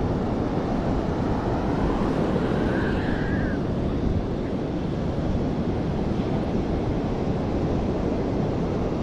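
Steady rush of wind on the microphone mixed with ocean surf on the beach, with a brief faint tone about three seconds in.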